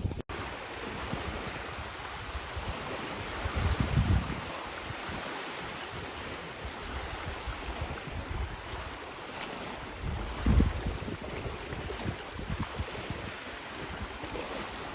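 Wind outdoors: a steady rushing hiss, with gusts buffeting the microphone about 4 and 10 seconds in.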